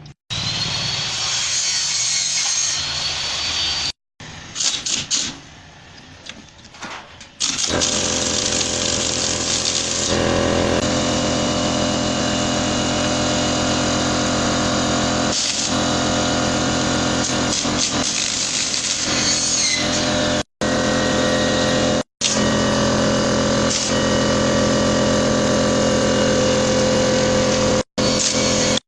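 A motor-driven machine running steadily at an even pitch, cut off abruptly several times, with quieter uneven clattering for a few seconds before it sets in.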